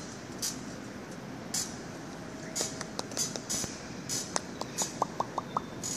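Light taps and rustles as a toddler handles a metal-framed waiting-area chair, then a quick run of about six small clinks a little over four seconds in.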